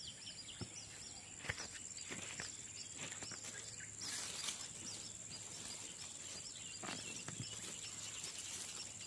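Outdoor field ambience: insects drone steadily at a high pitch, with repeated short high chirps throughout. A few soft knocks and rustles come and go, most around four seconds in and again near seven seconds.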